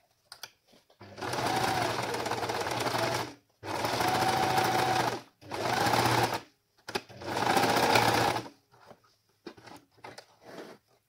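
Electric sewing machine stitching a seam through two layers of mask fabric, running in four short bursts of a second or two each with brief stops between. A few light clicks of fabric handling follow near the end.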